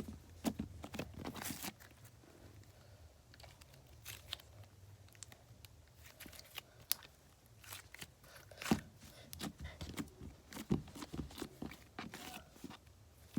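Homemade slime being squished, stretched and poked by hand, making irregular sticky crackles and pops, more closely bunched near the start and again in the second half.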